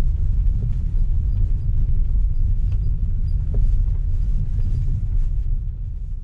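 Car driving on a gravel forest road, heard from inside the cabin: a steady low rumble of engine and tyres, with a few light clicks from the road now and then.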